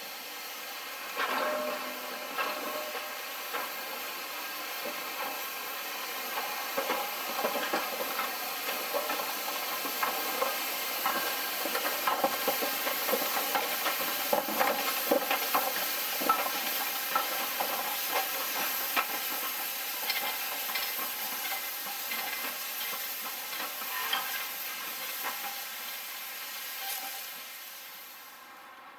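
Steam locomotive moving slowly, hissing steam steadily, with a string of clicks and clanks through the middle of the passage.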